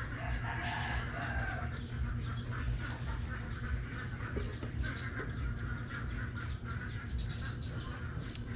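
Chickens clucking, with short scattered calls over a steady low rumble.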